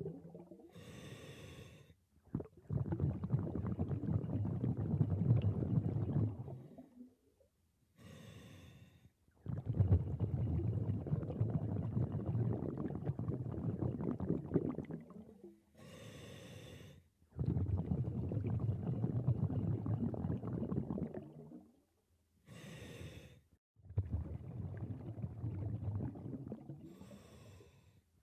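Scuba diver breathing through a regulator: a short hissing inhale, then a longer rumbling rush of exhaled bubbles, repeating about every seven seconds.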